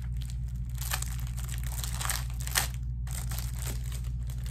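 Crinkling plastic packaging as a pack of thin plastic magnifying sheets in its plastic sleeve is handled, with short rustles about one, two and two and a half seconds in, over a steady low hum.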